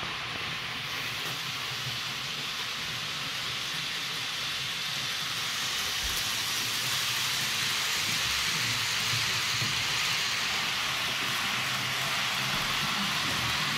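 H0-scale model freight train hauled by a PIKO SU46 diesel locomotive running along the layout track, a steady rolling rush of wheels on rails with a low motor hum, growing a little louder from about six seconds in as it comes close.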